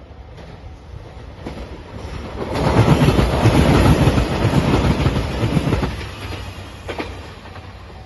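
JR Shikoku 2700 series diesel limited express train, led by a red Anpanman car, passing close by. The rumble and rush of engines and wheels builds to loud about two and a half seconds in and dies away after about six seconds.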